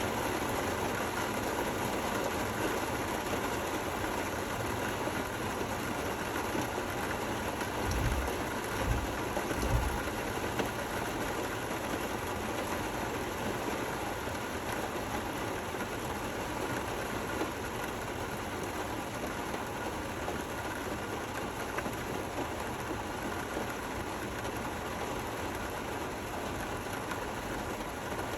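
Steady rain falling, an even hiss with no breaks. A few short low thumps come about eight to ten seconds in.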